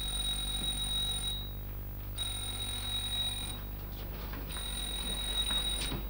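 Electric doorbell ringing in long, steady, high-pitched rings, three in a row with short gaps between them, over a low electrical hum.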